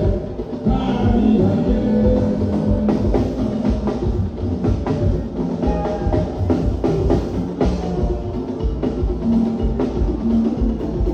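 Live jùjú band music with a steady drum and percussion beat and singing over it.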